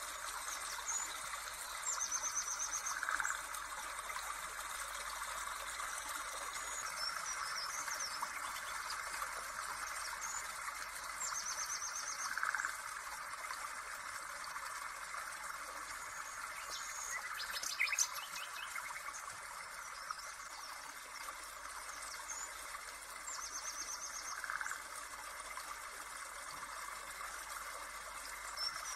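Nature ambience track: birds chirping and trilling over a steady trickle of running water, the same few-second bird phrases coming back about every eleven seconds as the recording loops.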